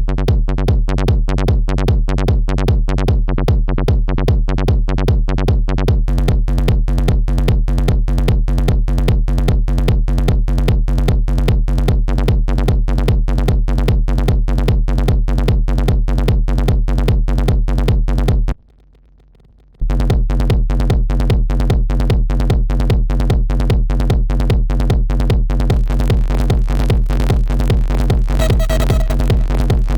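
Techno loop playing back from Ableton Live: a steady, rapid electronic pulse of about four hits a second over a heavy low end. It cuts out for about a second around two-thirds of the way through, then resumes, with a higher tone coming in near the end.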